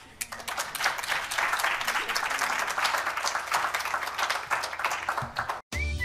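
Audience applauding, many hands clapping together, cut off suddenly near the end.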